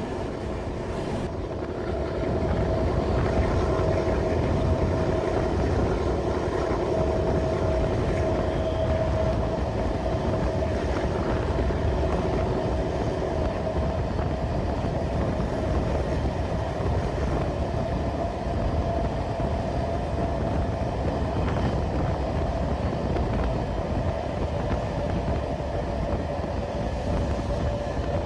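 TCDD DE 24000 diesel-electric locomotive running steadily with a steady whine, heard from an open coach window along with the rumble of the train's wheels on the rails.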